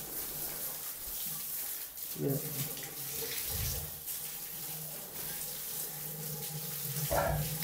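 Water spraying from a hose onto lionesses and a wet concrete floor, a steady hiss, with the low, even hum of the running water-pump motor underneath.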